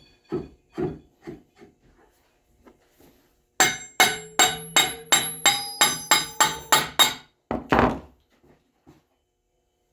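Hammer striking metal parts of a treadmill roller assembly during a bearing replacement: a few light knocks, then a quick run of about eleven ringing blows at roughly three a second, then one longer scraping clatter near the end.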